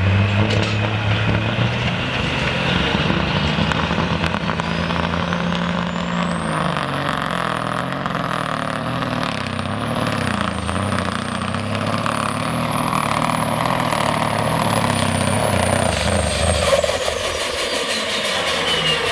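Diesel engine of an International semi truck running hard under load while it pulls a weight-transfer sled. A high whistle climbs about four seconds in, wavers, and falls away near the end.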